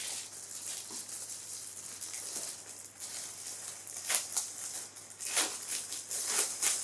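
Clear plastic packaging bag crinkling and rustling as it is handled and pulled open, with sharper crackles about four seconds in and again near the end.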